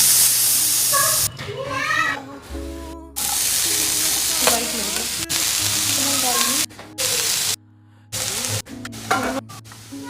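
Sizzling of food frying in a hot pan, with stirring, broken into several short stretches that cut off abruptly. Background music runs underneath.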